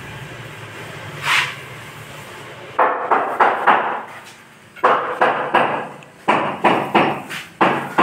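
Hammer blows in quick runs of three or four, roughly three a second, starting about three seconds in. Before them, a short swish about a second in.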